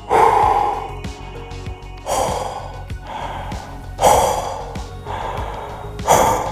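A man huffing strong breaths out of his open mouth against a clear face shield to test whether it fogs: four hard exhalations about two seconds apart, each strongest at the start and then trailing off. Background music plays underneath.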